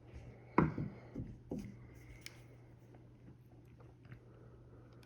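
Small hand-work sounds on a seatbelt retractor as its pin is worked out: a few short knocks and scrapes within the first couple of seconds and a sharp click a moment later, then only faint ticks.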